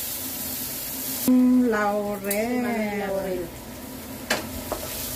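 Onion rings, garlic and bay leaves frying in hot oil in a wok, a light sizzle, broken for about two seconds by a drawn-out vocal sound. A utensil clicks against the pan about four seconds in, and the sizzle returns.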